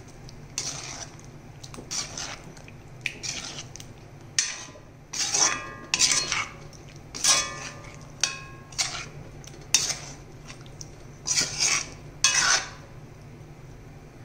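Metal spatula scraping and clinking against an iron kadai as whole baby potatoes are gently stirred through thick masala gravy, in irregular strokes about once a second, a few with a short metallic ring. A low steady hum runs underneath.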